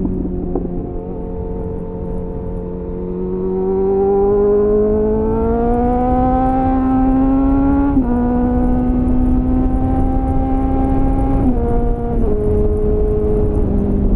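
Suzuki GSF 600 Bandit's inline-four engine through an aftermarket slip-on exhaust with a homemade dB-killer, heard from onboard the moving motorcycle with wind rumble. The engine note holds steady, then rises in pitch under acceleration from about three seconds in, drops sharply at a gear change about eight seconds in, and steps down twice more near the end.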